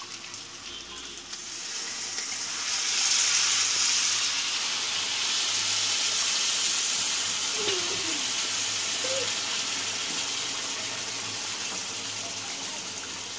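Cold water poured cup by cup into a hot pan of fried rice and spice masala, hissing and sizzling as it hits. The sizzle swells about two seconds in and slowly dies down as the pan fills.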